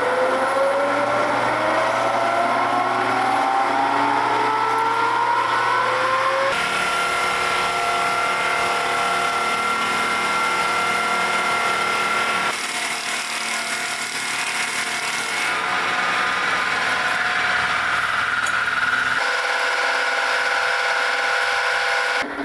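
Belt-driven circle-blade sawmill running loud, its whine rising steadily for the first six seconds as it comes up to speed, then holding steady tones that change abruptly several times as it saws.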